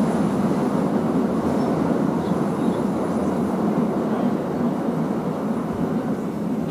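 KA Lokal Merak passenger train running along the track: a steady, even rail noise without distinct clicks or horn.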